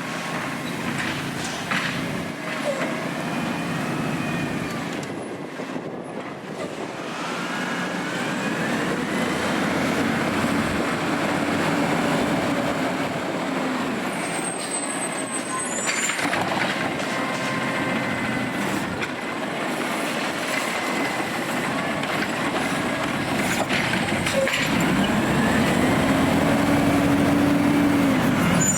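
Automated side-loader garbage truck working, its engine and hydraulics running with a whine that rises and falls in pitch several times. It grows louder near the end.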